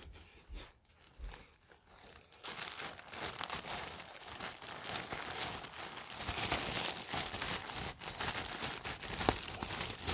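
Clear plastic poly bag crinkling and rustling as hands work a jersey around inside it. It is fairly quiet for the first couple of seconds, then the crinkling becomes continuous and louder.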